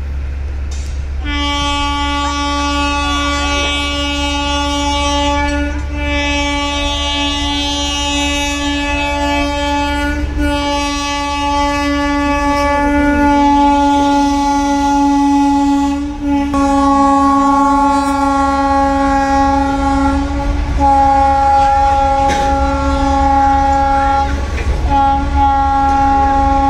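A train horn sounding one steady tone in long blasts, broken by short gaps every few seconds, over a steady low rumble.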